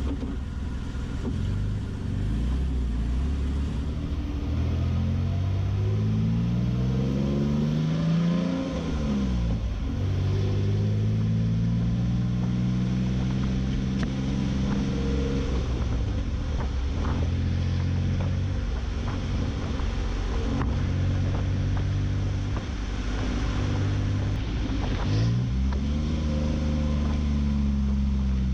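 Toyota Tacoma's V6 running through an MBRP 3-inch catback exhaust. The note starts steady, climbs in pitch for a few seconds, falls sharply about nine seconds in, then holds a steady drone with smaller dips. It climbs again near the end.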